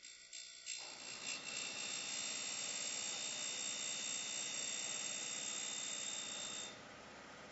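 DAREX E90 end mill sharpener grinding the secondary clearance angle on an end mill's flutes: a steady, high-pitched grinding hiss starts about a second in. Near the end it cuts off, leaving a quieter steady running noise from the machine.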